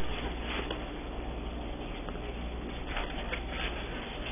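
Polystyrene foam carton being handled and its top half pulled off: a knock at the start, then faint scraping and rubbing of foam with a few light clicks.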